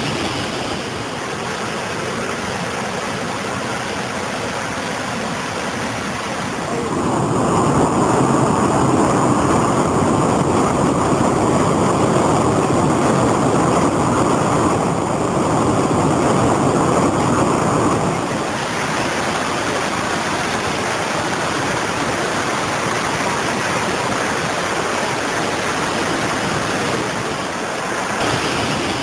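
Floodwater rushing through a desert valley in a flash flood: a steady, continuous rush of water. It turns louder and deeper about seven seconds in and eases back about eleven seconds later.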